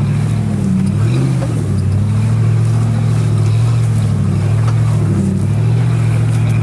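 Jeep Grand Cherokee's 4.7-litre V8 running at low revs under load while crawling over off-road terrain, heard from inside the cabin; its pitch rises and falls slightly.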